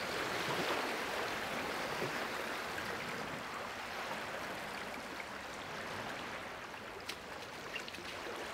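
Steady sloshing and lapping of lake water, with one sharp click about seven seconds in.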